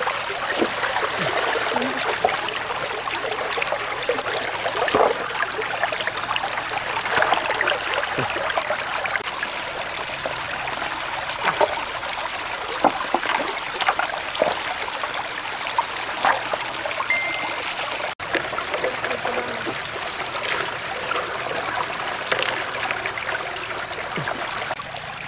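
A shallow stream running over rocks, with scattered short splashes and knocks from people wading and lifting stones in the water.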